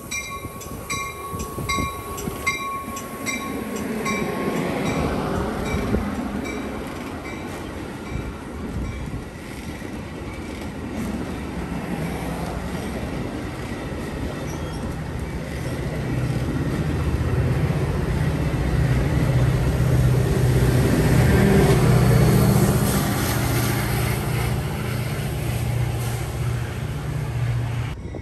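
Metra bilevel push-pull commuter train passing close, steel wheels rolling on rail, with its diesel locomotive at the rear going by loudest about two-thirds of the way through as a steady low engine drone, then fading. At the start, a bell rings about three times a second and stops about two seconds in.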